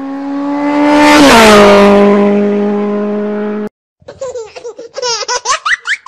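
A car speeds past, its engine note dropping in pitch as it goes by and then cutting off abruptly. About four seconds in, high-pitched laughing begins.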